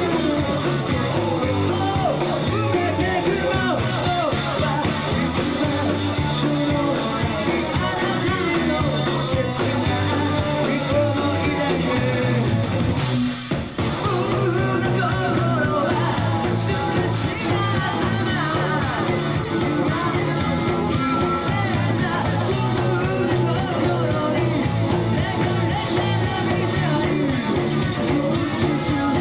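Rock band playing live: a singer's vocals over electric guitar, bass guitar and drums. The sound dips briefly about halfway through, then carries on.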